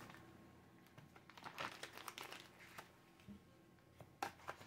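Faint crinkling of a plastic bag being pulled off a small cardboard knife box, in short scattered rustles with a few light ticks, the sharpest about four seconds in.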